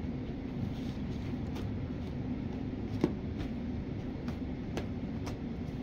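Steady low background hum with scattered faint clicks and rustles from a cat chewing at a toy by a fabric cat tunnel; one sharper click about three seconds in.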